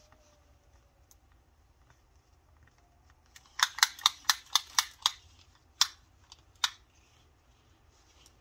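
Sharp clicks from handling a tape measure: a quick run of about seven clicks, then two single clicks a little later and one more near the end.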